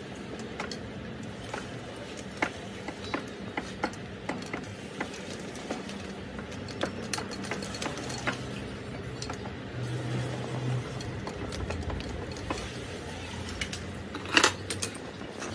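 Metal lathe running with a low steady hum while a tap held in a T-handle tap wrench cuts threads into a small steel part in the four-jaw chuck, giving irregular light metallic clicks. A louder metallic clatter comes near the end.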